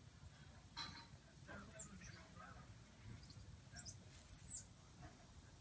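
Squirrel monkeys calling: two long, very high-pitched whistled peeps of about half a second each, each dropping in pitch at the end, with fainter short chirps between them.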